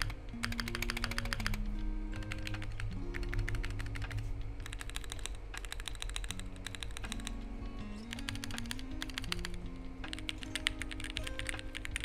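Fast typing on a Monsgeek M1 mechanical keyboard with a POM plate and ASA-profile PBT keycaps: rapid runs of key clacks in bursts about a second long, with short pauses between them. Background music with a slow melody plays underneath.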